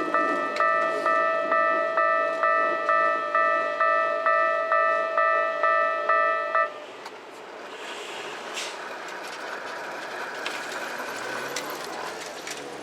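Japanese railway level-crossing alarm ringing its electronic bell, a steady 'kan-kan' of about two strokes a second, then stopping abruptly a little past halfway: the alarm shutting off as the crossing clears. Steady street and traffic noise remains after it stops.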